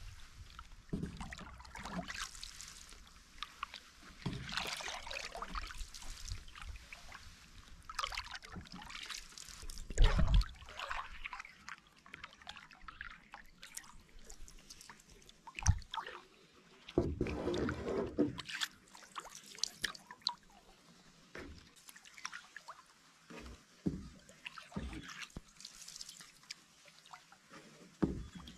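Wooden canoe paddle stroking through lake water: repeated irregular swishes and splashes, with water trickling and dripping off the blade. A few low thumps fall among the strokes.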